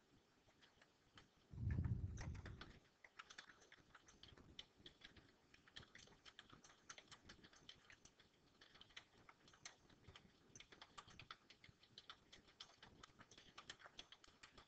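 Faint, fast, irregular keystrokes of someone typing a sentence on a computer keyboard. About two seconds in comes a brief low muffled noise, the loudest sound here.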